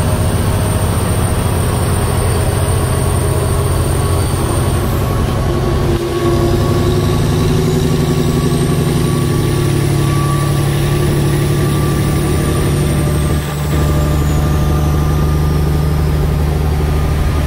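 Semi truck's diesel engine and road noise heard from inside the cab while cruising on the highway, a steady low drone that dips briefly twice.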